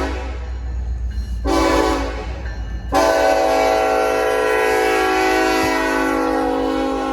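A locomotive's Nathan Airchime Mini K5LLA horn sounding a chord of several tones. A blast dies away just after the start, a short blast comes about a second and a half in, and a long blast starts about three seconds in and holds. A steady low rumble runs underneath.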